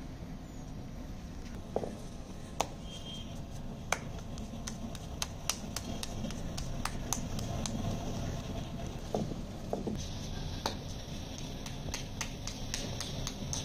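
Hands rubbing and patting together, with light slaps at an irregular pace, over a steady low background rumble.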